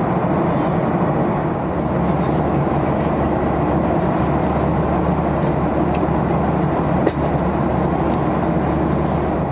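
Loud, steady cabin noise of a Boeing 737-800 in cruise, heard from a seat near the front: the rush of air and the drone of its CFM56 engines. A small click about seven seconds in.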